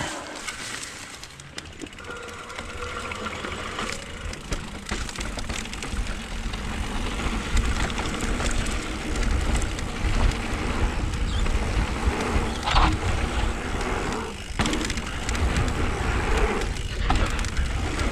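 Mountain bike rolling fast along a dirt trail: tyres rumbling and rattling over the ground, with wind rushing over the helmet-mounted action camera's microphone. It builds louder from about six seconds in, with a few sharp knocks.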